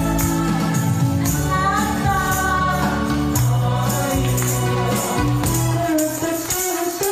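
Karaoke backing track played through PA speakers with a steady beat, and a woman singing over it into a handheld microphone.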